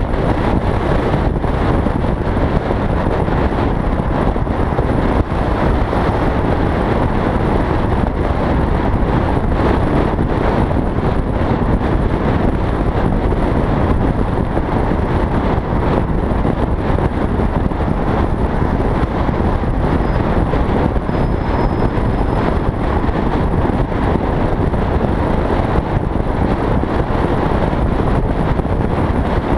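Steady rush of wind buffeting a helmet-mounted camera on a Yamaha XT660Z Ténéré motorcycle riding at speed, with the bike's single-cylinder engine running under the wind noise.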